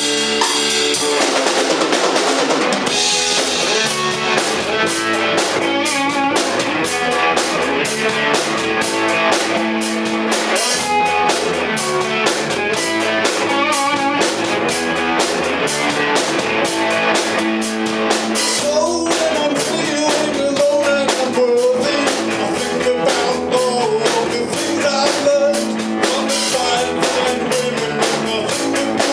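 Live rock band playing: electric guitar, electric bass and a Gretsch drum kit, with a steady driving beat. About two-thirds of the way through, a pitched line that bends up and down rises above the band.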